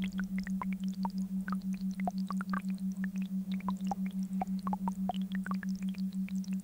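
Binaural-beat meditation track: a low steady hum that pulses evenly and rapidly throughout, overlaid with scattered short, high electronic chirps and pings.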